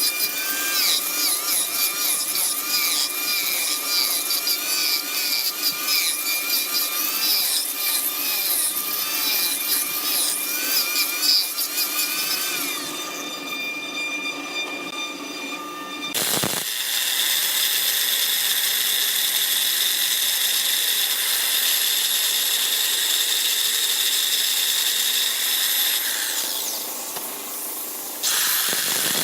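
Woodworking lathe running with a steady motor whine while a cutting tool scrapes the spinning wood in uneven strokes. About halfway through the motor winds down, and the sound cuts abruptly to another steady machine whine, which dips and picks up again near the end.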